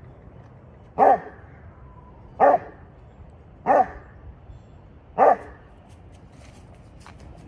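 A dog barking: four single loud barks, evenly spaced about a second and a half apart.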